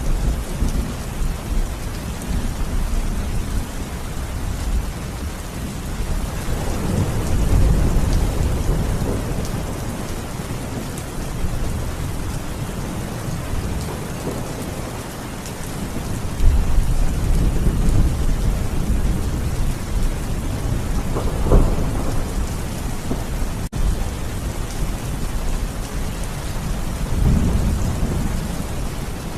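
Steady rain falling, with rolling thunder rumbling up several times; one louder, sharper thunder crack comes about two-thirds of the way through.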